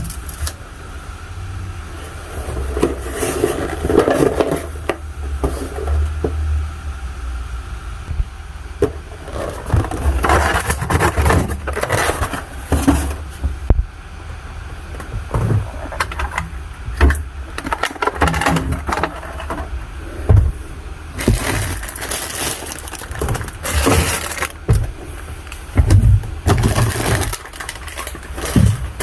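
Groceries being unpacked and put into a refrigerator: packages handled, knocked and set down in irregular clatters and rustles.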